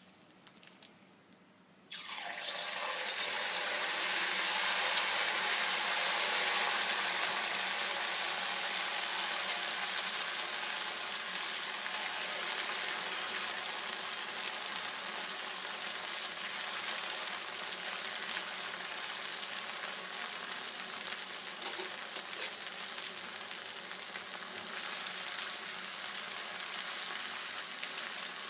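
Rice-paste kurkure going into hot oil about two seconds in: a sudden loud sizzle of deep frying that eases a little but keeps on steadily.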